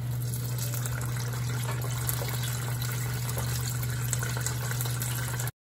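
Hot oil in an electric deep fryer bubbling and crackling hard around battered fried chicken as the basket goes back in to finish cooking, over a steady low hum. The sound cuts off suddenly near the end.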